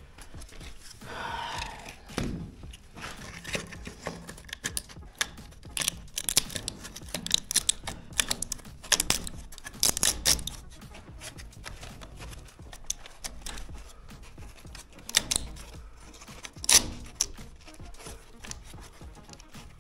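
Irregular clicks, taps and rustling from hands-on work, with a scratchy, tearing sound about a second in.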